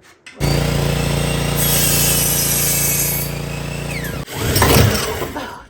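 Electric power tool motor running steadily, cut off abruptly about four seconds in, followed by a short, loud, rough clatter.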